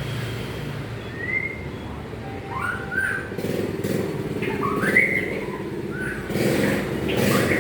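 Murai songbird singing short, rising whistled phrases, several times, over a steady low rumble of motorbike and traffic noise.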